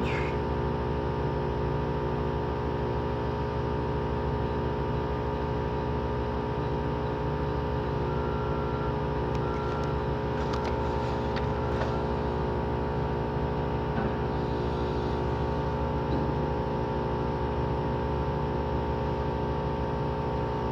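An engine idling steadily at an even speed, a constant low hum with many layered tones.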